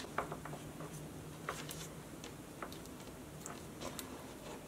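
Faint, scattered small clicks and rustles of paracord being worked through a metal buckle end with a metal paracord needle, over a steady low hum.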